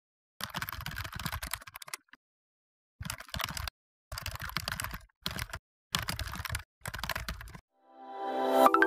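Computer keyboard typing in six quick bursts of clicks with short silent pauses between them. Near the end, a rising swell leads into a marimba tune.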